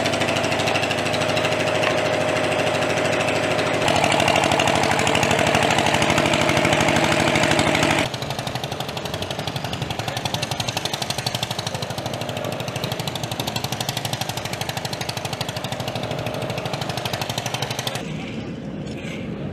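Construction machinery running. A steady engine drone steps louder about four seconds in; from about eight seconds it gives way to a rapid, even mechanical pulsing, which drops quieter near the end.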